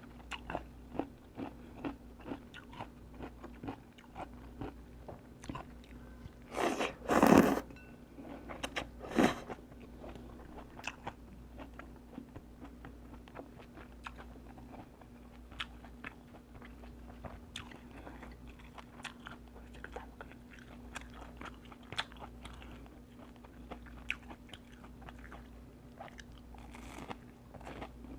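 A person chewing and biting food close to the microphone, with many small crunches and wet mouth clicks, and two louder, longer noises about seven and nine seconds in. A low steady hum runs underneath.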